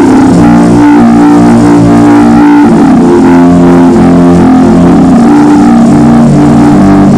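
Sustained keyboard chords moving from note to note, under the dense sound of a congregation praying and crying aloud all at once.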